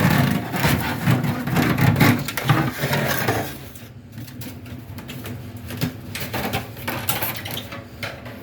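Old flexible aluminum dryer vent duct being pulled out and handled, crinkling and rattling. It is loudest for the first three seconds or so, then drops to quieter scattered crinkles and knocks.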